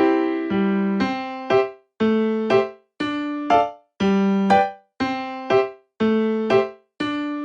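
Background music: a light piano or electric-piano tune, chords struck about once a second, each ringing and fading before the next.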